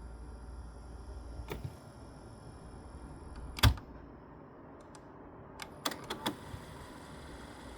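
Technics RS-B28R cassette deck's mechanism and controls clicking. There is a light click, then one sharp clack about three and a half seconds in, then a quick run of clicks around six seconds in.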